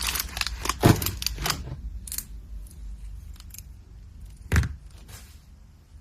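Small metal jewelry parts (gold chains, clasp and pliers) clinking and rattling as they are handled, busiest in the first couple of seconds, with a knock about a second in and another at about four and a half seconds.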